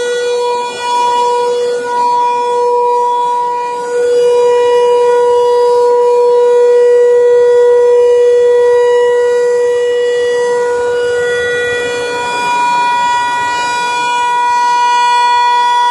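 Federal Signal 508 rotating outdoor warning siren sounding a steady, loud tone at unchanging pitch. Its loudness swells and dips over several seconds as the horn turns.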